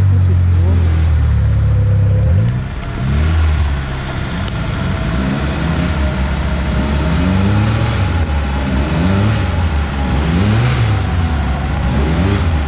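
Off-road vehicle's engine held at high revs for about two seconds, then revving up and down again and again as the driver works the throttle.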